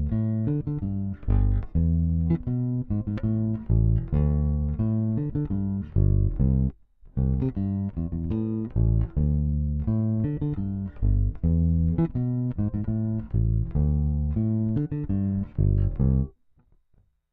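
Bacchus Woodline five-string electric bass playing a repeated exercise phrase of short plucked notes, with a brief break about seven seconds in; the playing stops about a second before the end.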